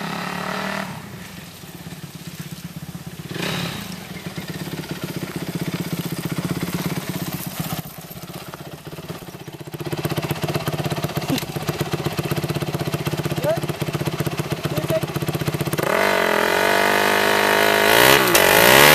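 Honda motocross bike engine idling steadily, then revved hard and repeatedly from about three seconds before the end as the rear tyre spins on a board in a burnout.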